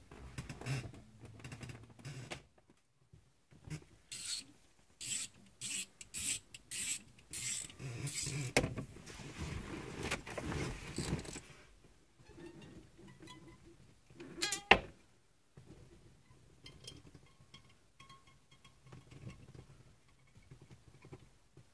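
Braided fishing line being wound onto a quarter-inch ratchet and drawn through a windshield's urethane seal: a run of short rasping strokes, then a longer stretch of steady rasping as the line saws through. About two-thirds of the way in comes one loud, sharp twang with a ringing tone as the line sings under tension, then faint thin tones.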